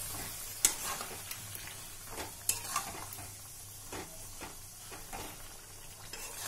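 A spatula stirring chicken curry with yogurt in a non-stick pan, scraping and knocking against the pan in irregular strokes, over a faint sizzle of the simmering sauce.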